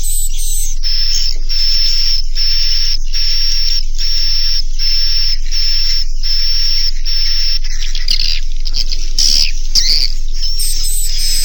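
Swiftlet roosting ('inap') lure call for swiftlet farming: a loop of high, buzzy chirps repeating about twice a second, breaking into quicker, varied twittering near the end. A steady low hum runs underneath.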